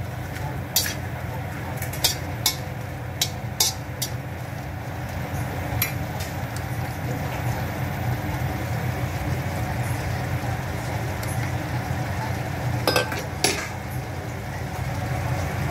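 Shrimp frying in a pan with a steady sizzle as they are stir-fried. A metal utensil clinks against the pan several times in the first few seconds, once more a little later, and twice near the end.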